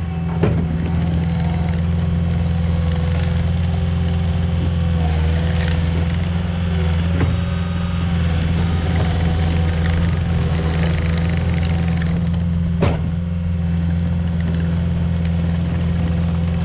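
Cat 259 compact track loader's diesel engine running at a steady speed while the machine drives on gravel, with a few sharp knocks, the loudest about three-quarters of the way through.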